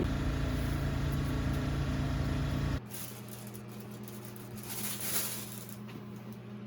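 Steady low mechanical hum. About three seconds in it cuts off abruptly, and a quieter, lower steady hum follows.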